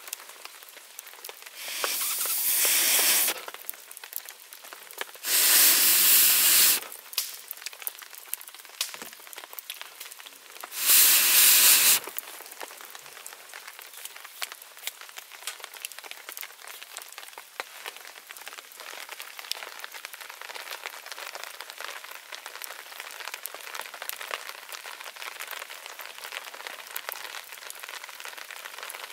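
Steady rain pattering, a crackle of many small drops, broken three times by a loud hissing rush lasting a second or so each, near the start and around the middle.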